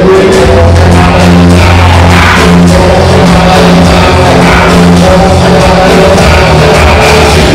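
Loud music with a heavy bass line, a steady drum beat and some singing.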